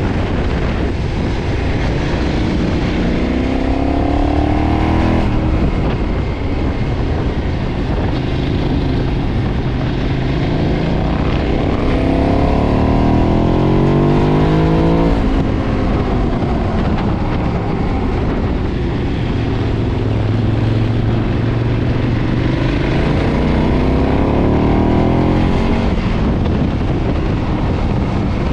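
KTM 990's LC8 V-twin engine through its stock exhaust, pulling hard three times, its revs climbing for a couple of seconds and then dropping off as the throttle closes, with steadier running in between.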